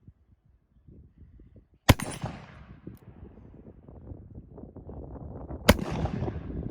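Two shots from a black-powder cap-and-ball revolver, the Uberti reproduction of the Colt 1851 Navy in .36 calibre, fired about four seconds apart. Each sharp report trails off in a long rumble, with a faint click between the shots.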